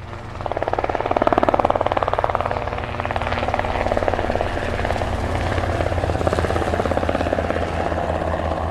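Helicopter rotor beating in a fast, even rhythm over an engine hum, swelling in within the first second and then holding steady.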